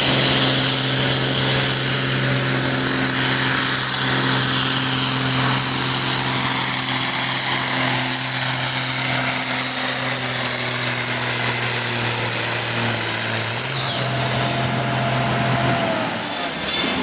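John Deere 4440's turbocharged six-cylinder diesel running hard under load, pulling a tractor-pull sled: a steady engine note with a dense high whistle above it. About fourteen seconds in a high whistle falls in pitch, and near the end the engine note stops.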